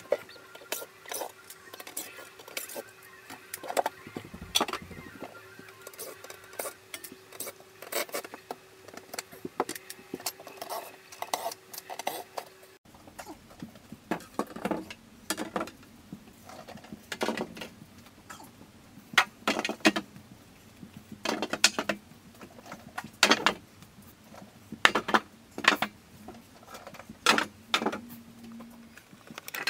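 Wooden cabinet doors knocking and clacking against each other and the floor as they are handled and stood upright in a row. Lighter clicks and taps come first; from about halfway, louder single knocks come every second or two.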